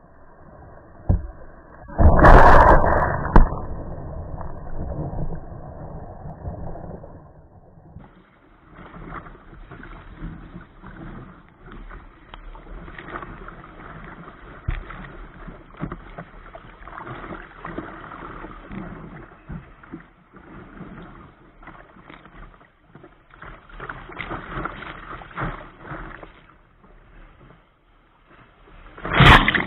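Sea kayak leaping over a breaking wave about two seconds in and slamming down with a loud crash of water, followed by the rush and slosh of surf around the hull. Surf keeps splashing against the boat, and a second loud splash hits near the end.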